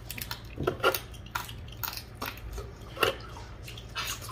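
Seafood boil being eaten close to the microphone: irregular wet smacks, clicks and cracks of crab and shrimp shells, a few every second with sharper snaps about a second in and again about three seconds in.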